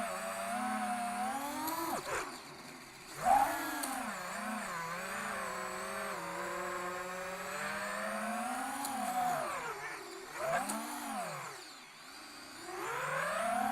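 Brushless FPV drone motors whining as the throttle is varied, the pitch rising and falling. They cut out briefly about two seconds in, then spin back up, and drop low again before rising near the end. One motor is suspected faulty.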